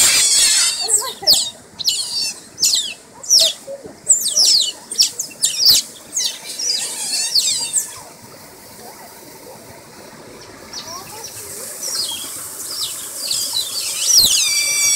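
A group of Asian small-clawed otters squealing and chirping: rapid high-pitched falling squeaks for the first several seconds, a quieter lull, then the calls pick up again and grow louder near the end.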